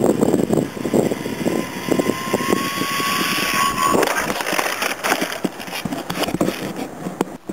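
A small radio-controlled plane's motor whining at a steady pitch that creeps slightly up and stops about halfway through, with heavy wind buffeting and crackling on the microphone throughout.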